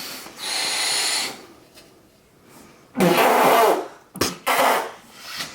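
A man sniffs hard through the nose, drawing in Carolina Reaper and black pepper powder. About three seconds in comes one loud, forceful breath out, followed by two shorter ones, as the hot powder hits his sinuses.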